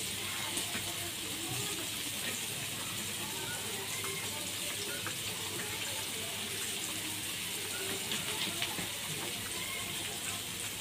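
Oil sizzling steadily under raw-banana slices shallow-frying in a nonstick pan, with a few faint clicks as the slices are turned by hand.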